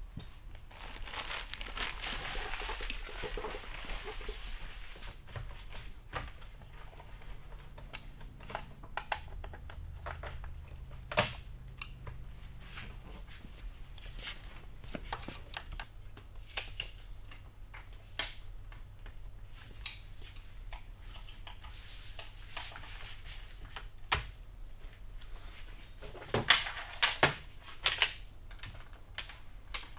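Workshop handling sounds: plastic packaging and parts rustling and crinkling, with scattered sharp clicks and knocks, over a low steady hum.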